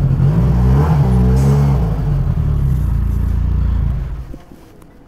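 Motorcycle engine running, its pitch rising and falling with the throttle, then dropping away abruptly about four seconds in.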